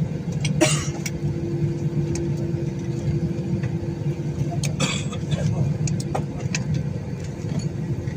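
Airliner cabin noise while taxiing: a steady low rumble with a steady hum over it. Two brief rustling noises come about half a second in and about five seconds in.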